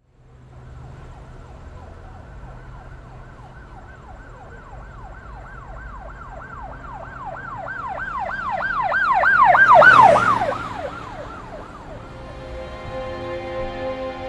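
An emergency vehicle's siren yelping quickly, about three rises and falls a second, growing steadily louder as it approaches and passing with a rush of noise about ten seconds in, then fading away. Soft music with long held tones comes in near the end.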